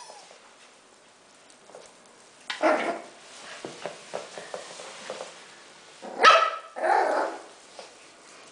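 Small Yorkshire Terrier barking at a rubber chicken toy: one bark about three seconds in, then two more close together around six to seven seconds in.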